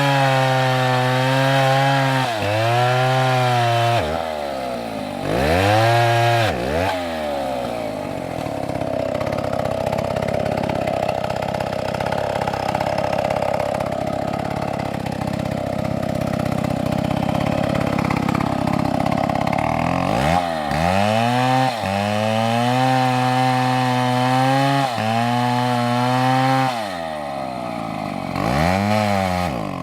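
Chainsaw engine revving up and down, then running steadily for about twelve seconds, lower in pitch and rougher, as it does when the chain is loaded in a cut. It then revs up and down again.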